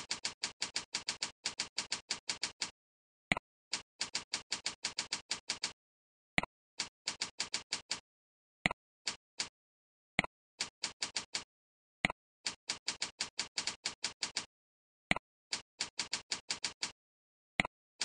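Computer keyboard typing in quick runs of keystrokes, about seven a second. Each run follows a single mouse click that selects the next form field.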